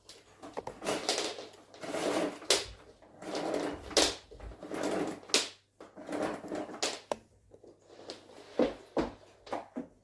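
Irregular household handling noises: a run of knocks, scrapes and rustles at uneven intervals, with no steady motor running.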